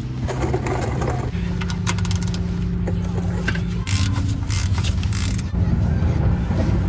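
Ratchet wrench clicking in short runs as the drain plug on a Toyota AE86's rear differential is loosened.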